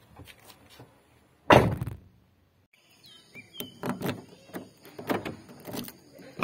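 A car door shuts with a heavy thunk about one and a half seconds in. After a short pause, a key clicks and rattles in a car door lock, with faint bird chirps.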